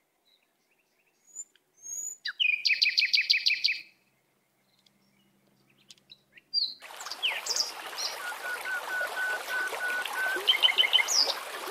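Forest birds calling, with a fast trill of repeated high notes lasting about a second and a half. About seven seconds in, the steady sound of a shallow stream running over stones starts suddenly, and birds keep calling over it, one with a row of even, evenly spaced notes.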